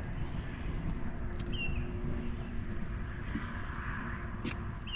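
Outdoor ambience: a steady low rumble, with a small bird giving a short, slightly falling chirp about every two seconds and a single faint click near the end.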